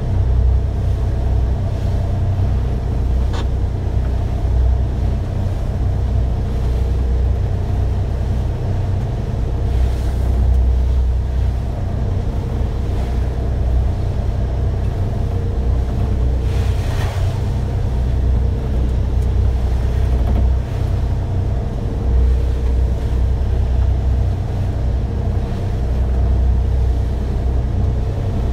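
Fishing boat's inboard diesel engine running steadily under way, a low drone heard from inside the wheelhouse. A short hissing rush comes about two-thirds of the way in.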